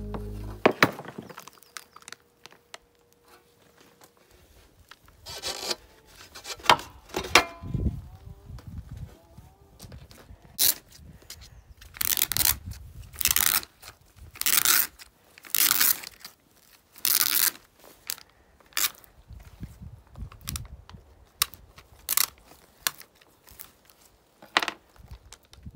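Lithium-ion pouch cells of a VW ID.3/ID.4 battery module being pried and worked apart by hand with a flat scraper. There are a few sharp snaps in the first seconds, then a run of short scraping strokes, about one a second, through the middle.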